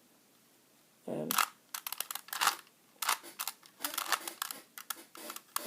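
Plastic Rubik's Cube faces being twisted by hand, making a run of quick clicks and clacks, several each second, starting about a second in.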